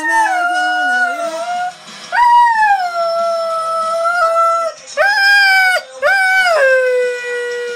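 A dog howling along to singing: four long howls, each starting high and sliding down in pitch, the last one held steady.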